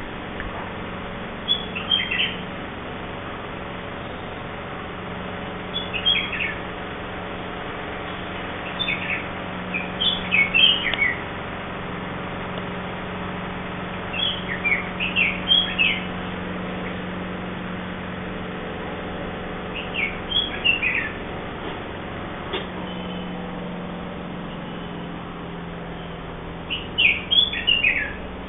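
Red-whiskered bulbul giving short bouts of quick, bubbly chirping calls, about six bouts a few seconds apart.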